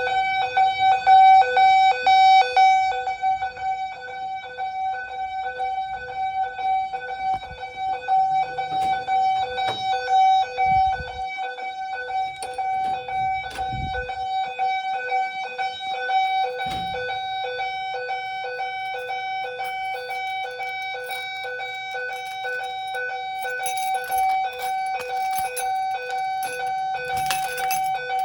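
Simplex TrueAlert ES fire alarm notification appliances sounding a loud, steady alarm tone during a test of the system. A few dull knocks come partway through.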